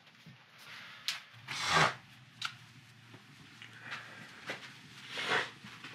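Kitchen handling noises: a few light clicks and knocks and two louder rustling scrapes as a pot and a mug are handled and set down and someone moves about.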